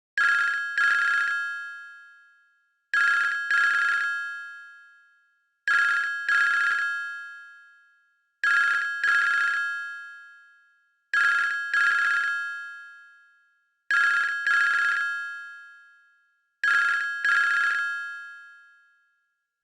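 Sferia C161c mobile phone ringtone in a telephone-bell style: a double ring, two strikes about 0.7 s apart, repeated seven times about every 2.7 s, each ring dying away before the next.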